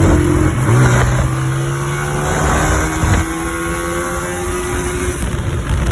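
Honda CG125's single-cylinder four-stroke engine pulling under way on a test ride, its pitch rising slowly and easing off near the end, with wind on the microphone. The engine has freshly replaced cam gears, fitted to cure a cam gear noise.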